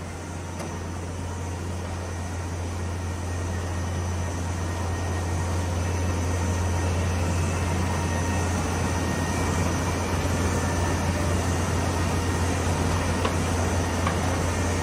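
MGM-960CR automatic paperboard V/U grooving and creasing machine running steadily with a deep hum and even noise, growing somewhat louder over the first few seconds as it processes a sheet of board.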